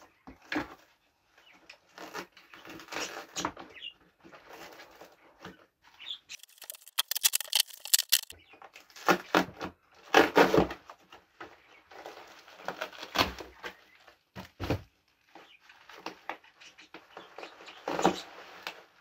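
Plastic parcel wrapping and tape being cut with scissors, then torn and pulled away in irregular rustling, crackling bursts. A spell of dense crackling comes in the middle, and there are a couple of dull thumps on the desk later on.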